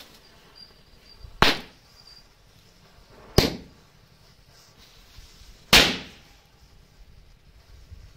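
Three sharp firecracker bangs about two seconds apart, each dying away quickly, set off as a burning matchstick chain reaches them.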